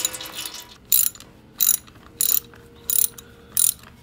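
Socket ratchet backing out the 12 mm oil filter cover bolt on a 1978 Honda CB400 Hawk: a quick run of clicking at first, then short clicking strokes about every two-thirds of a second.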